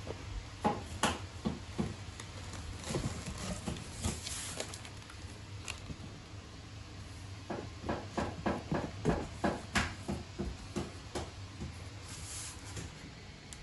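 Cat squeezing into a cardboard box among packing material: runs of quick taps, scrapes and rustles of cardboard and wrapping, with a quieter stretch in the middle.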